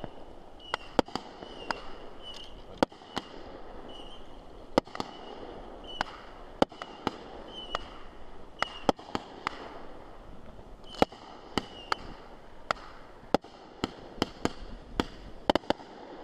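Fireworks going off: a run of sharp, irregular bangs and pops, about two a second, over a steady background hiss. A short high chirp repeats every half second to a second between them, mostly in the first half.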